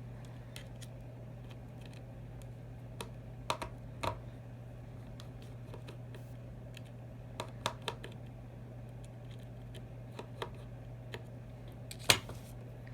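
Scattered small clicks and taps of metal repair tools against an iPhone 6's internal parts during removal of the vibrating motor, in small clusters with the sharpest click near the end, over a steady low hum.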